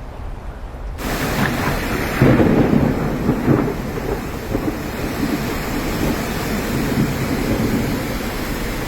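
Heavy rain with a deep rumble of thunder. It starts abruptly about a second in, and the rumble is loudest a second or two later.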